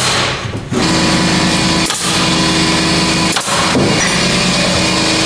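Electric air compressor motor starts about a second in and runs steadily with a pitched hum, recharging the tank for a pneumatic framing nailer. Two sharp cracks, typical of the nailer driving nails, cut through it.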